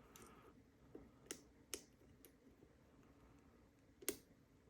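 Faint, sharp metallic clicks of a lock pick working the pins of a six-pin Union padlock held in a deeper false set, about five scattered clicks with the loudest near the end.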